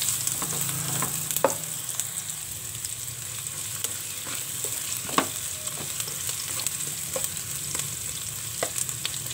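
Garlic, onion and ginger sizzling in hot oil in a pan as a spatula stirs and scrapes them, with scattered sharp taps of the spatula on the pan, the loudest about five seconds in.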